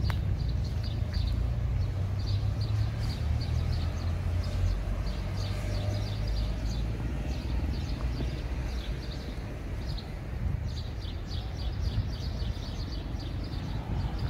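Outdoor ambience: a steady low rumble, with quick high chirps repeating through most of it.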